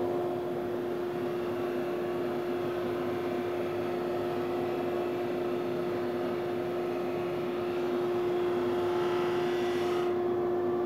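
Powermatic 22-44 drum sander running together with the shop dust collector: a steady machine hum with a clear held tone, as a board feeds under the sanding drum on the conveyor. A scratchy sanding sound swells near the end and cuts off suddenly about ten seconds in as the board clears the drum.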